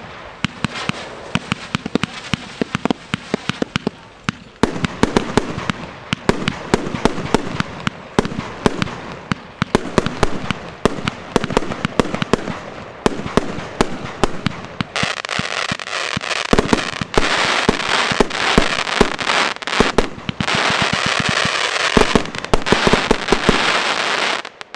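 Volt! Fireworks 'Color Experiment' firework battery from the WATT series firing its shots in rapid succession, each lift followed by the pop of bursting stars. From a little past halfway, dense crackling mixed with further shots takes over. It stops abruptly near the end as the battery finishes.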